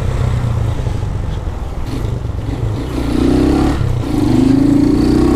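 150 cc single-cylinder motorcycle engine running under way, rising to a higher, louder note from about three seconds in as it pulls. The owner says the engine has developed a knock and needs rebuilding.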